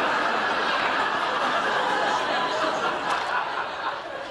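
Studio audience laughing, the laughter tailing off near the end.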